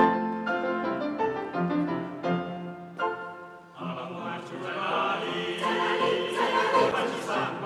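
A Steinway grand piano playing a passage of separate notes, then a mixed choir comes in about four seconds in, singing with the piano accompanying.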